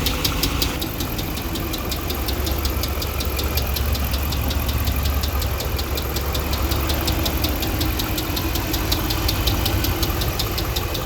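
2009 Dodge Ram 5.7 L Hemi V8 idling with a fast, steady ticking from the centre of the engine, in time with the engine. The inspector takes the tick, with its cylinder 3 misfire, for a failed lifter and camshaft.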